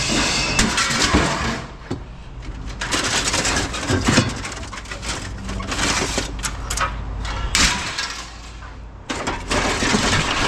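Scrap metal being handled, with irregular clattering and knocks over a steady low hum.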